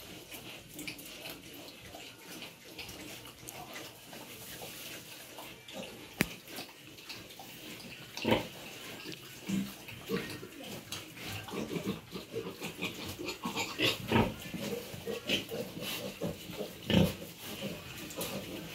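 Pigs calling in short, loud grunts, scattered through the second half, with a single sharp click about six seconds in.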